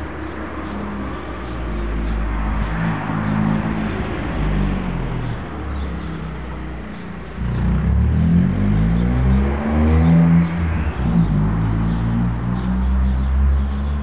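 A motor vehicle's engine running close by, its pitch rising and falling as it revs, getting louder about halfway in.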